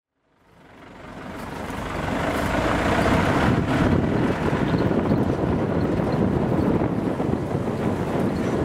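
Safari jeep driving along a dirt track: steady engine and road rumble that fades in over the first two seconds.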